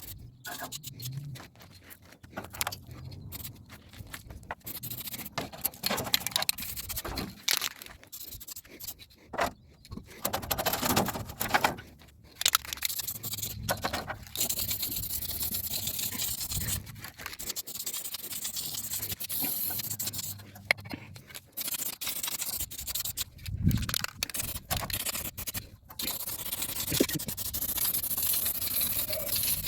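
Aerosol spray paint can hissing in long bursts, mixed with irregular clicks and scraping handling noises.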